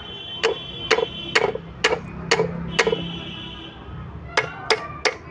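Sharp metal-on-metal taps on the parts of a tractor PTO gearbox during assembly, each with a short ring. There are six taps about two a second, a short pause, then three quicker taps near the end.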